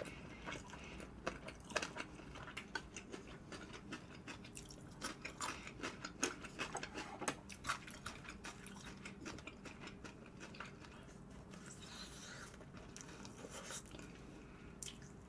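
Close-miked chewing of crispy fried food: irregular faint crunches and wet mouth sounds, thickest in the first half, thinning out after the middle, with a fresh bite near the end.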